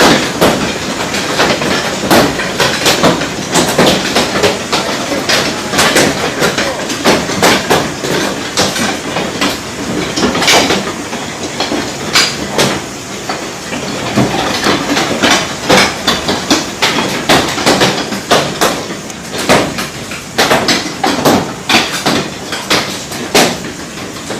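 Hailstones pelting hard surfaces in a heavy hail storm: a dense, irregular clatter of sharp impacts over a steady rushing noise.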